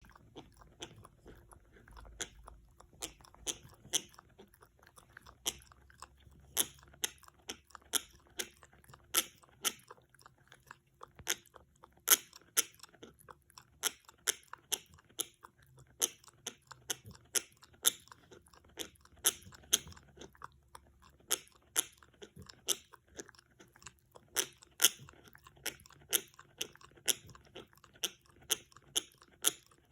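French Bulldog gnawing on a hard antler chew: its teeth grind and scrape on the antler in sharp, irregular crunches and clicks, about two a second.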